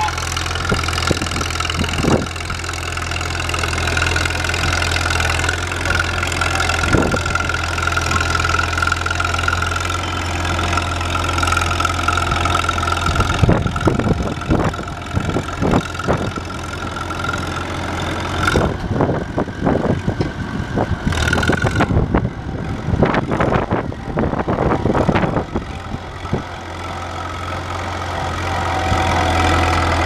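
Vintage cable-controlled crawler bulldozer working: its engine runs steadily while the steel tracks and blade gear clank and knock, the clanking thickest through the middle of the stretch. A thin high whine sounds through the first half.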